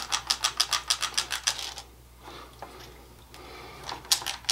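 A squeeze-handle cookie scoop's release mechanism clicking in a fast run, about eight clicks a second, as dough is pushed out of the bowl onto the tray. The clicking stops for about two seconds and starts again near the end.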